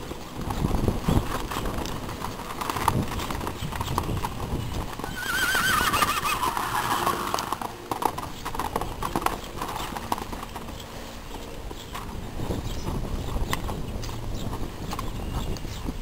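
Irregular hoofbeats of loose young Oldenburg horses moving at trot and canter on a sand arena. About five seconds in, a horse whinnies for roughly two seconds, a quavering call that falls in pitch.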